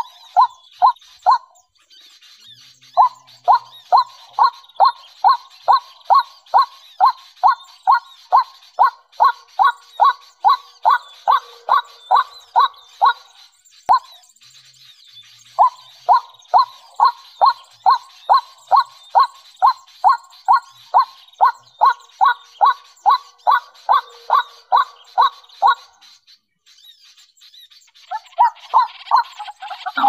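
White-breasted waterhen calling: a loud, monotonous series of sharp notes, about two or three a second, in long runs broken by short pauses. A steady high-pitched hum sits underneath.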